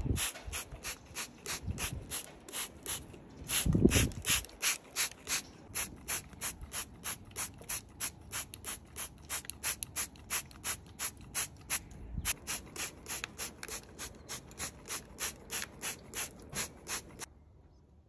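Handheld trigger spray bottle squirted over and over, misting a northern hawk owl for its bath, in a steady rhythm of about three sprays a second. The spraying stops abruptly near the end.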